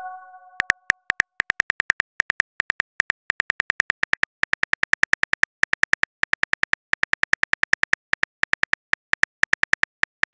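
Phone keyboard key-click sound effect tapping out a message: a fast, even run of short clicks, several a second, starting about half a second in after a chime fades out.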